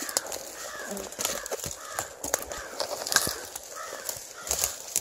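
Footsteps crunching through dry fallen leaves and snapping dead twigs while pushing through dense brush, with many sharp crackles and a steady walking rhythm.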